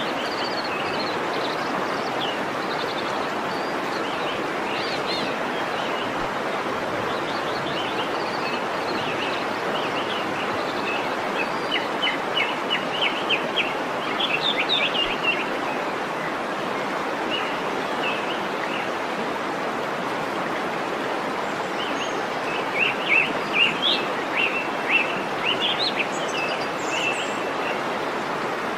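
Waterfall rushing steadily, with songbirds chirping over it in quick runs of short notes, loudest in a spell around the middle and again near the end.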